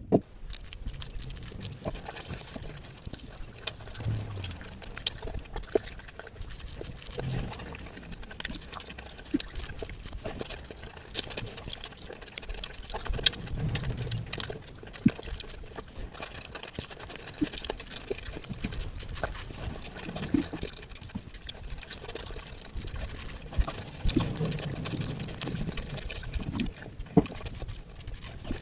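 Eating sounds: a person chewing chicken biryani with wet mouth noises and frequent small irregular clicks and smacks.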